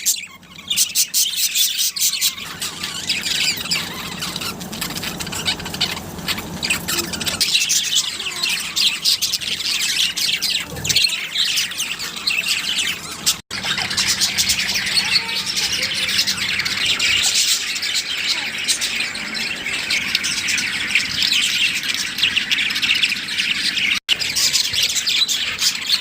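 Budgerigars chirping and chattering in a dense, continuous stream of quick high chirps and squawks, with two very brief breaks.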